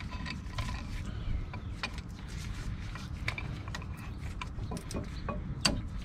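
A C-clamp is being worked back and forth against an old brake pad to press the pistons back into a 2001 Chevy Tahoe's two-piston front brake caliper. It gives irregular metallic clicks and creaks as the stiff old pistons go in slowly.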